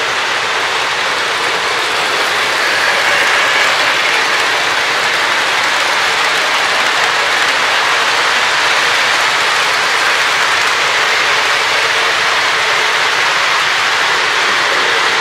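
Model freight train of double-stack container cars running fast on the layout's track behind a 2-8-2 Mikado model steam locomotive, a loud, steady rolling noise of wheels on rail that swells slightly about two seconds in. The uploader finds this running noise at high scale speed too loud.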